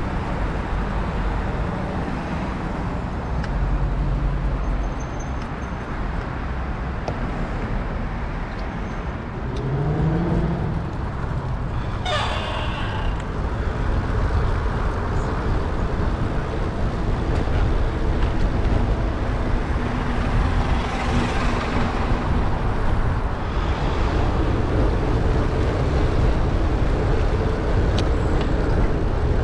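City road traffic heard from a bicycle: motor vehicle engines running under a constant low rumble. An engine note rises about ten seconds in, a sharp hiss falls away about two seconds later, and a louder rush of passing traffic comes near the twenty-one-second mark.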